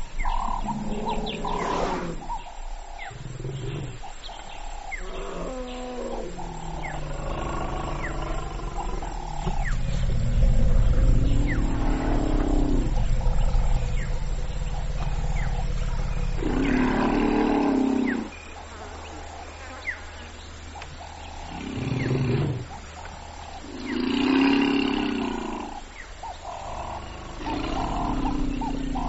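African elephants vocalising: long, deep rumbles and several louder roaring calls of a second or two each.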